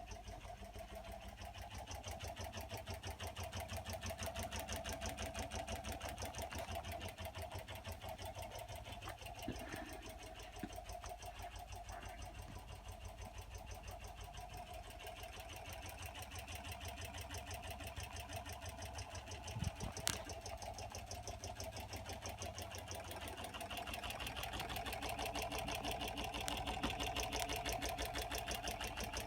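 Mini ceiling fan running wobbly, its motor giving a steady hum under a rapid, regular clatter from the off-balance wobble. A single sharp click about two-thirds of the way through.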